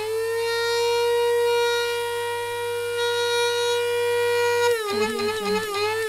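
Electric burr coffee grinder's motor whining at a high pitch. The whine rises and holds steady for about four and a half seconds, then starts dipping and wobbling in pitch again near the end.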